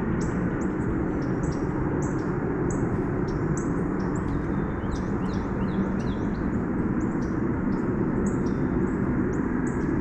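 Small birds chirping over and over in quick short high notes, over a steady rushing noise.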